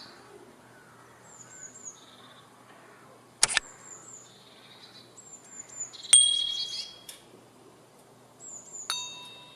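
Songbirds calling: short series of three or four high, falling chirps repeated every few seconds, with a few sharp clicks and a brief ringing ding near the end.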